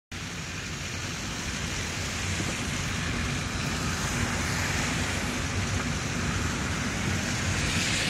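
Steady noise of a car driving on a snow-covered road, heard from inside the cabin: a low engine and road hum with an even tyre hiss, slowly getting louder.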